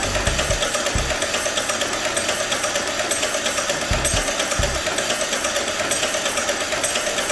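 Replica of Moritz von Jacobi's 1834 electric motor running, its spinning commutator discs and contact arms making a rapid, even mechanical clatter, with an occasional low thump.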